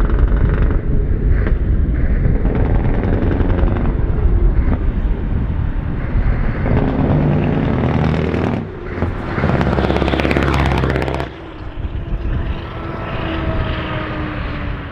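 Scania 4-series truck's diesel engine, very loud, revving hard as it pulls away and passes. The engine note dips briefly twice, a little past eight and eleven seconds in, and thins out toward the end as the truck moves away.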